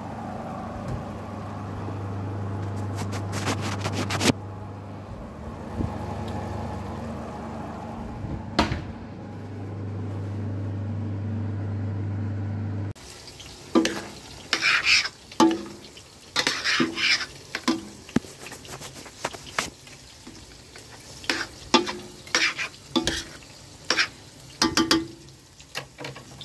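A steady low hum for roughly the first half, then a metal utensil stirring and scraping pancit noodles in a large stainless-steel pot, with many sharp clinks against the pot's side.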